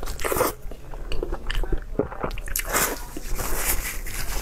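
A person biting and chewing a chunk of skin-on meat coated in chili oil, close to a clip-on microphone, with irregular short clicks and smacks of the mouth.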